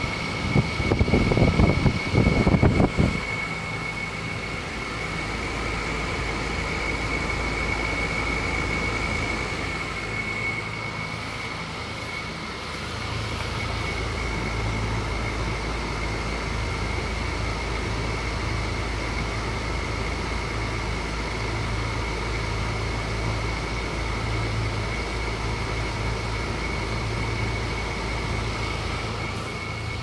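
Trane air-conditioner condensing unit running: a steady low hum from the compressor and condenser fan with a thin high whine over it. Near the start a loud irregular burst lasts about two seconds.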